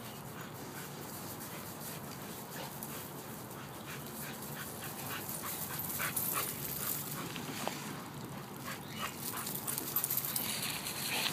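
A dog moving about at close range: soft scuffs and scattered light clicks, with faint dog noises.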